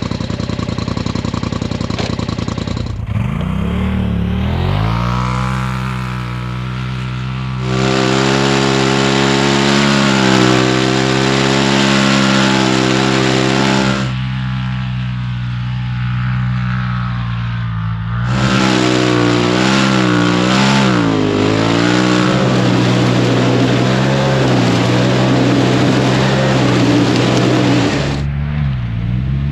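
Polaris RZR XP Turbo's turbocharged twin-cylinder engine running through a GGB stainless-steel turbo-back exhaust, driven hard under throttle: the pitch climbs a few seconds in, then it surges loudly twice, eases off between, and drops away near the end. The exhaust note is deep and tuned.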